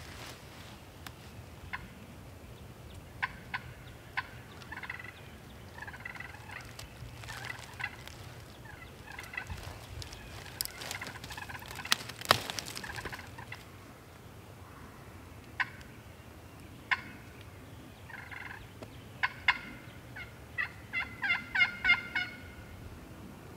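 Wild turkey gobbler gobbling several times, each gobble a quick rattling run of notes, the loudest gobble near the end. A few sharp clicks fall between the calls.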